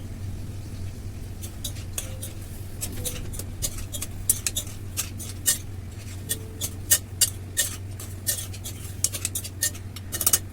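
Mutton frying in hot ghee in a metal pressure-cooker pan, stirred with a metal spoon: irregular clinks and sharp clicks of metal on the pan, more frequent in the second half, over a steady low hum.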